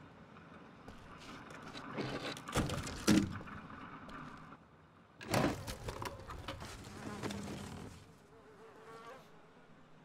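Cries and chitters of a small hidden creature, the wounded baby dragon, as a film sound effect. Two louder sudden sounds come about two and a half and five seconds in, and a faint wavering call comes near the end.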